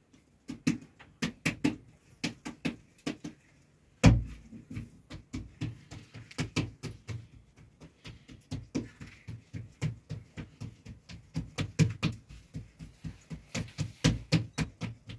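Hands patting and slapping a ball of bread dough flat on a round board: a run of short slaps, sparse at first, then regular at about three to four a second, with one heavier thump about four seconds in.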